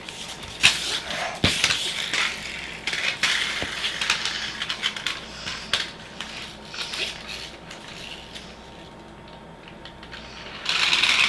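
Small diecast metal toy cars clicking and clinking as they are handled and wound back on their pullback motors. Near the end a louder whirring rush as the pullback cars are let go and run.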